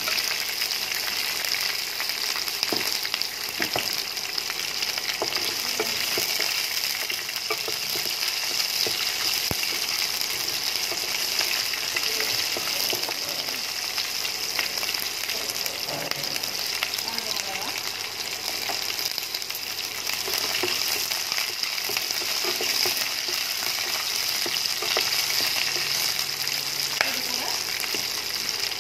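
Green chillies frying in hot groundnut oil with mustard seeds and chana dal in a non-stick kadai: a steady sizzling hiss with occasional light clicks of stirring.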